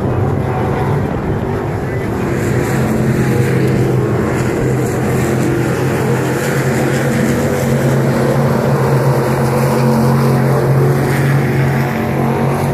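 Crate Sportsman dirt-track race cars' V8 engines running hard around the track, a loud, steady engine drone that holds its pitch.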